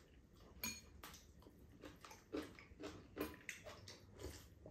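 Quiet eating sounds: chewing noodles and smacking lips, with about half a dozen short, soft clicks and smacks spread through.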